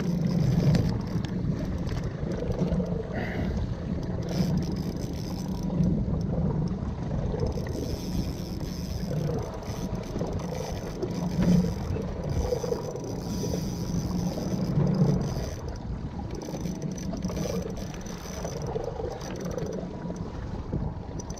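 Small offshore fishing boat at sea: a steady low rumble of motor and water, with brief faint clicks now and then.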